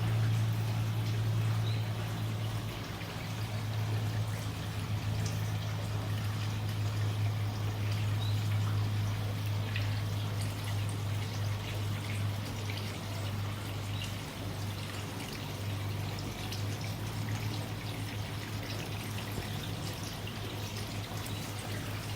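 Water trickling and pouring into an indoor tropical fish pond, with a steady low hum underneath.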